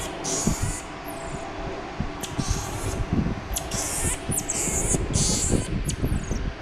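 A baby monkey's repeated high-pitched squeaks and chirps, some sliding down in pitch, over rustling and handling noise.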